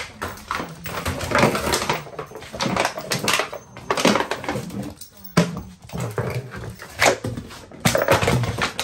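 A Border Collie puppy playing with an empty plastic water bottle on a laminate floor: the bottle crackles and clatters in irregular bursts as it is bitten, pawed and skitters along, with the puppy's own voice now and then.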